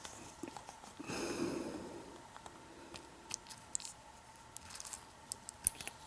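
Faint small metallic clicks and a brief scrape as a Kwikset deadbolt cylinder is taken apart by hand, its plug and pin parts being handled.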